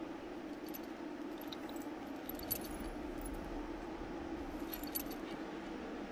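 Small metal tag on a chain jingling, a few scattered light clinks with a sharper one about two and a half seconds in and another near five seconds, over a steady low ambient hum.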